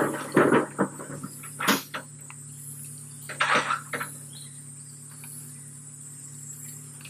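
Steady high buzz of rainforest insects, with scattered rustles and knocks in the first four seconds, including one sharp click a little under two seconds in and a louder rustle about three and a half seconds in.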